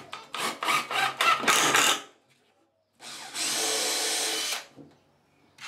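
Makita cordless impact driver driving a screw into the pine tray frame in a quick run of short bursts. After a pause, a Makita cordless drill runs steadily for about a second and a half, drilling a pilot hole in the end of the frame.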